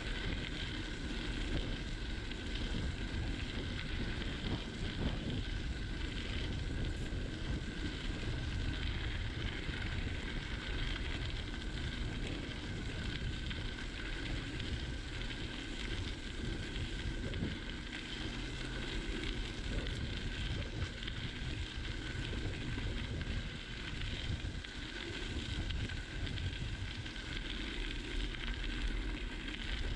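Bicycle rolling steadily along a gravel path: the tyres make a crunching rumble, and wind buffets the bike-mounted camera's microphone.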